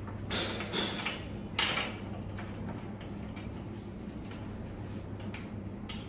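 Clicks and knocks of an Adirondack chair's backrest being fitted and fastened by hand. There are a few sharp knocks in the first two seconds, the loudest about a second and a half in, then a run of light ticks and another knock near the end, over a steady low hum.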